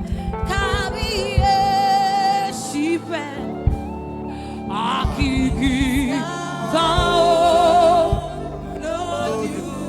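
Gospel worship music: a singing voice with strong vibrato holds long, wordless notes over sustained instrumental backing, with a few scattered drum beats.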